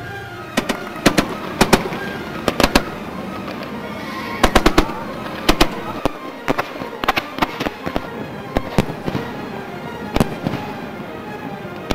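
Fireworks display: aerial shells and fountain effects going off in an irregular series of sharp bangs, starting about half a second in, with a quick run of bangs around the middle.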